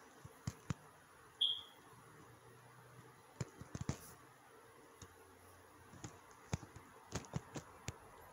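Faint scattered clicks and taps of a phone being handled close to the microphone, over low hiss, with one brief high squeak about one and a half seconds in.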